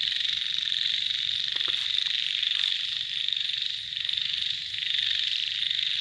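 Loud, steady evening chorus of many small animals calling at once in a rice field after a rainy night, a dense high-pitched trilling that the recordist takes for grasshoppers.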